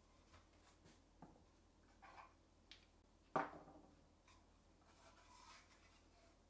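Quiet handling of a wooden jig on a wooden crosscut sled: a few faint rubs and light taps, then one sharp knock about three and a half seconds in as the wooden piece is set down on the board.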